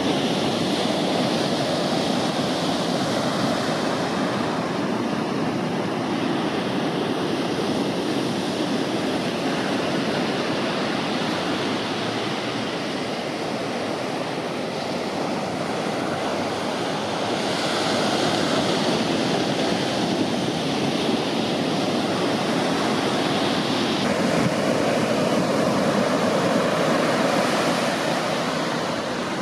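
Ocean surf: waves breaking and whitewash washing up the beach, a steady rushing noise that swells and eases slightly as the sets come in.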